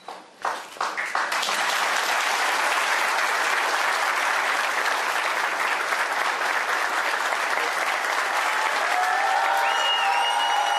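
Audience applauding: a few scattered claps that swell into steady applause after about a second. Near the end a sustained tone joins over the clapping.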